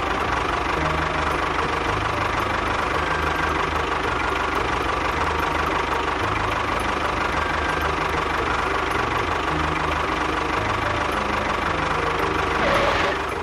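Tractor engine running steadily with a knocking chug, its low note shifting slightly, swelling briefly and then cutting off at the end.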